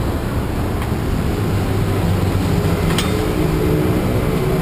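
Street traffic: a steady low rumble, with an engine's hum coming in about two seconds in. A single sharp click sounds about three seconds in.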